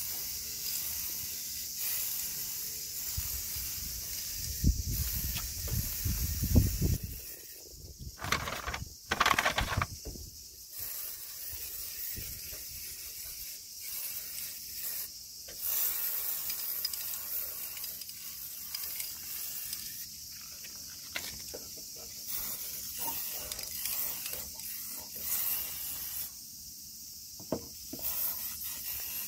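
Aerosol can of Holts clear-coat paint hissing as it sprays thin coats of clear over a repaired car panel, in a series of passes. A low rumble a few seconds in and louder noisy bursts around the middle break in over the spray.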